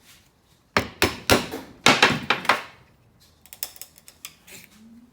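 Stanley knife blade cutting into wood by hand: a quick run of about six sharp scraping strokes, then a few lighter clicks and taps near the end.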